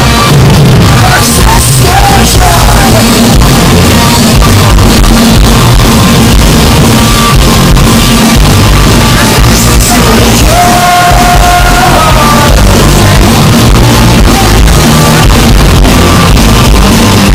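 A pop-punk band playing live: electric guitars, bass and drums with singing, loud and continuous. A held note sits above the band about ten seconds in.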